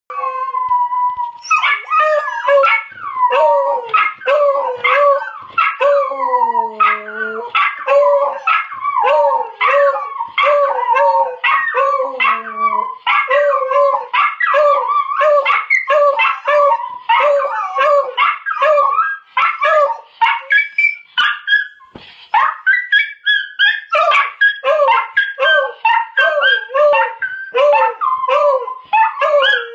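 A beagle and a miniature schnauzer howling and yipping together, set off by a recording of the schnauzer barking: a steady run of short yelps about twice a second, broken by a couple of long, falling howls.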